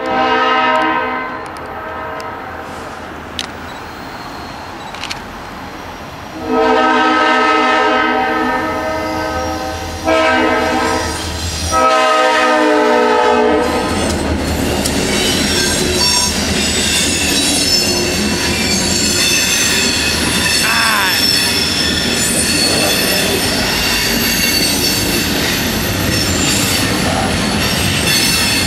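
Freight train passing a grade crossing. The diesel locomotive's horn sounds four blasts, the last three long, short and long, as in the standard crossing signal. After the horn stops, the train runs by with steady rail noise and high-pitched wheel squeal.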